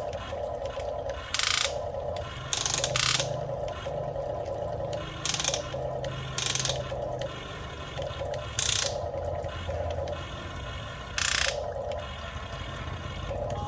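Small geared motors of a toy RC excavator whirring in short stop-start runs as its arm and bucket are worked, with several brief loud rasping bursts between them.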